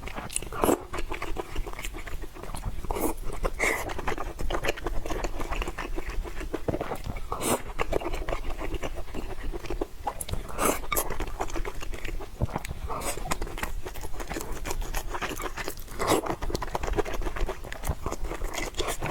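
Close-miked mukbang eating: steady chewing and biting with many small, irregular crunches and wet mouth sounds.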